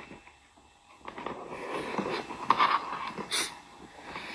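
A person sniffling and breathing noisily through a stuffy nose, with a short sharp sniff near the end; he takes it for a cold coming on.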